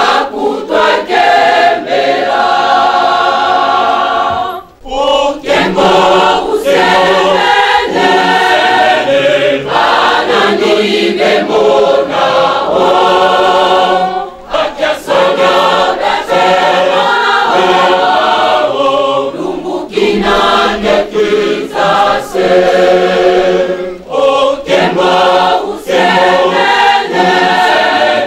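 Large Kimbanguist church choir singing a hymn, many voices in unison and harmony, with a brief break about five seconds in.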